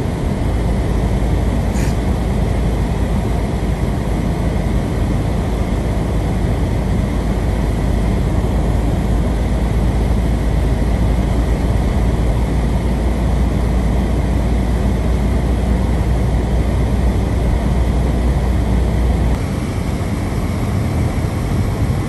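Inside a car's cabin while driving on a snow-covered road in strong wind: a steady rumble of road and wind noise. The deepest part of the rumble drops away about 19 seconds in.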